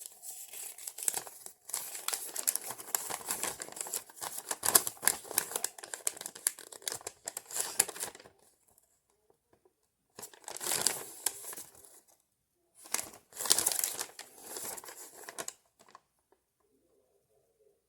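Packaging crinkling and rustling as it is handled. It goes on for about eight seconds, then comes in two shorter bursts, about ten and about thirteen seconds in.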